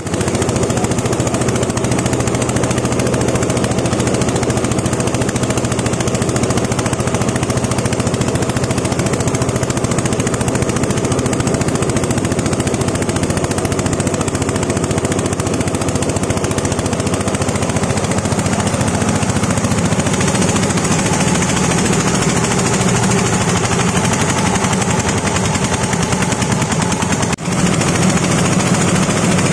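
Corn cob grinding machine running loudly and steadily, its motor under a dense, rapid clatter of crushing. It dips briefly about 27 seconds in.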